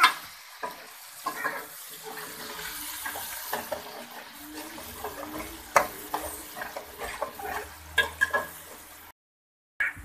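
Metal spatula scraping and clinking against a metal pan as onions, green chillies and tomatoes are stirred while they fry, over a faint steady sizzle. The sound cuts out completely for under a second near the end.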